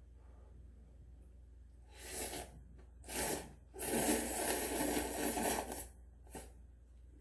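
Instant ramen noodles being slurped: two short slurps about two and three seconds in, then one long slurp of nearly two seconds, and a brief sound near the end.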